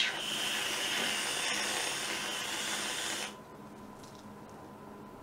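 Aerosol whipped-cream can spraying cream: a steady hiss that cuts off suddenly about three seconds in.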